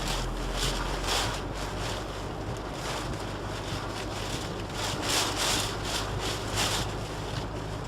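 Storm-force wind blowing and buffeting the microphone, a steady rush with a low rumble and gusts that swell and ease every second or so, the strongest about five seconds in.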